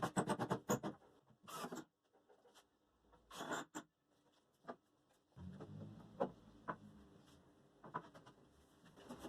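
Quick scraping and rubbing strokes on wood in the first seconds, a few more at about one and a half and three and a half seconds in. Then, about five seconds in, a low steady hum starts with scattered clicks over it.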